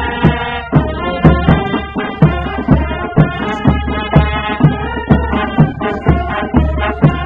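March music played by a band: brass instruments sounding a melody over a steady drum beat, about two beats a second.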